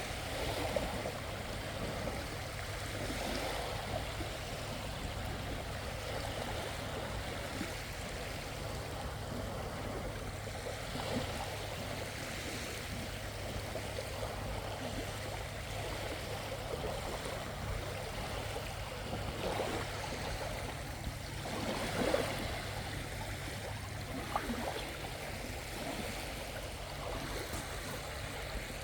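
Small waves washing and lapping on a beach: a steady watery rush with a few louder swells about two-thirds of the way through.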